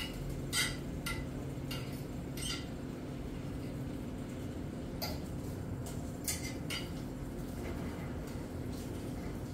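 A metal fork clinking and scraping against a frying pan as bacon strips are turned: a handful of sharp taps in the first couple of seconds and a few more around five to seven seconds in. Under them runs a steady low hum.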